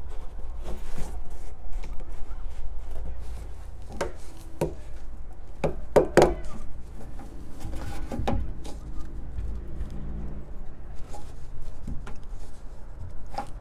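Flexible corrugated plastic hose being pushed and twisted onto a plastic diverter valve fitting in a downspout: scattered plastic knocks, clicks and rubbing, with a few short squeaks, over a low rumble.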